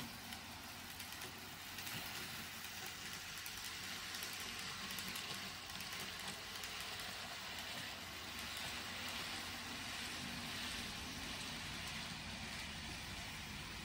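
N scale model freight train running on its track: a steady rolling whir of small metal wheels on rail and the locomotive motors.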